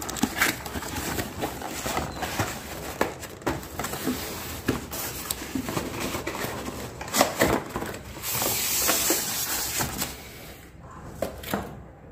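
Cardboard box and polystyrene packing of a digital bathroom scale being handled and opened: a run of scrapes, taps and crackles, with a longer steady scrape of about two seconds starting about eight seconds in.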